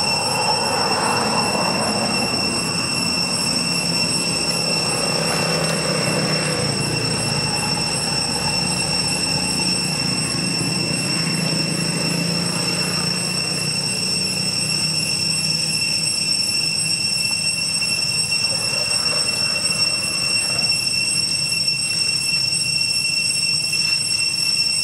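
Cicadas making a high, steady, unbroken whine on one pitch with overtones, over a low background hum that fades after the first half.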